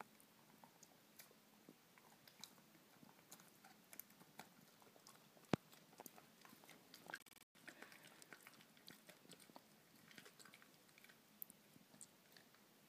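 Dachshund gnawing and crunching a hard chew stick: faint, irregular crunching clicks, with one sharper crack about five and a half seconds in.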